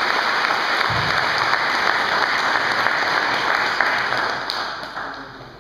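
Audience applauding steadily in a hall, the clapping dying away over the last second or so.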